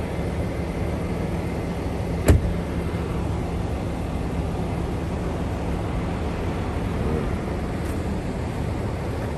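An SUV driving slowly over a rough gravel lot, heard through its open side window: a steady engine hum and tyre rumble, with one sharp knock about two seconds in.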